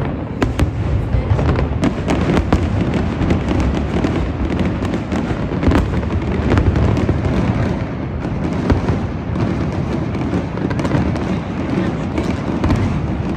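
Aerial fireworks going off in quick succession: a dense, unbroken run of bangs and crackling with sharp reports throughout.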